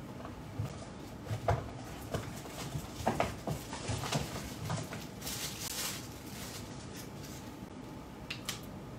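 Handling noises: scattered small knocks and clicks, a brief rustle about five seconds in, and two more clicks near the end, as things are picked up and moved about.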